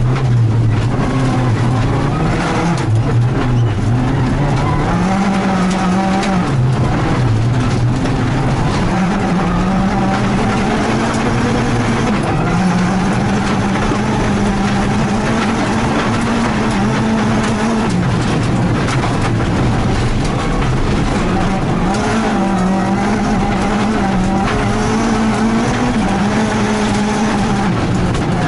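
Rally car engine heard from inside the cabin, pulled hard up through the revs and dropping back at each gear change or lift, over and over. Loose gravel crackles and rattles under the car on a gravel stage.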